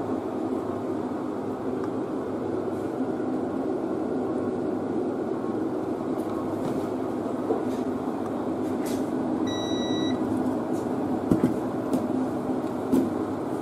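Steady rushing hum throughout, with a multimeter in continuity (buzzer) mode beeping once, briefly, about two thirds of the way through. A few light knocks follow near the end as the circuit board is handled on the workbench.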